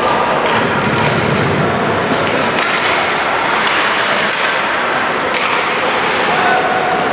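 Ice hockey game in play on an indoor rink: a steady wash of skate and arena noise, with several sharp clacks of sticks and puck scattered through.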